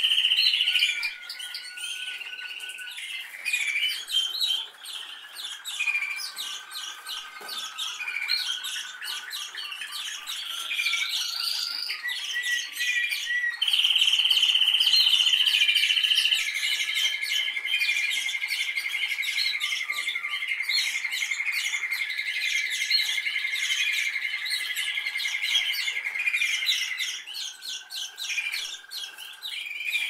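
Canary singing a long unbroken song of rapid trills and held whistled notes, with a loud held note about halfway through and a long steady trill after it.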